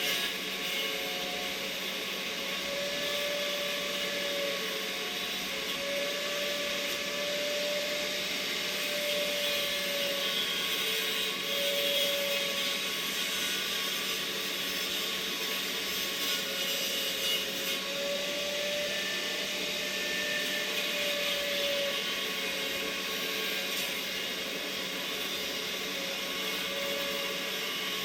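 A small motor-driven tool running steadily, its hum wavering in pitch now and then over a constant hiss.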